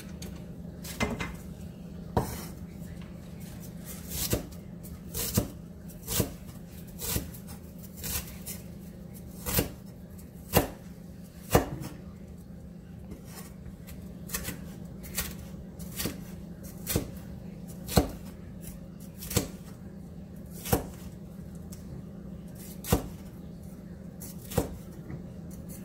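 Cleaver chopping onion and green bell pepper on a wooden cutting board: single sharp knocks at an uneven pace, about one a second, over a steady low hum.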